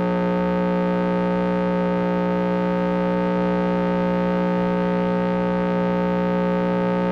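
Steady electronic drone: a constant buzzing tone with several fixed pitches that never changes, an audio fault in the recording rather than the scene's own sound.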